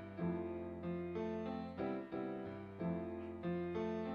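Piano accompaniment of a slow song playing alone between sung lines, striking repeated chords several times a second.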